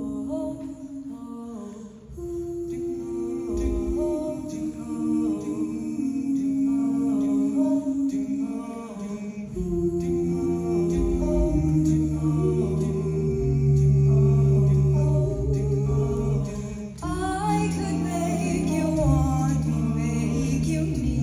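Mixed high school a cappella choir singing sustained hummed chords that shift in steps. About ten seconds in, a deep bass part comes in underneath. A few seconds before the end, a higher, wavering melody line rises over the group.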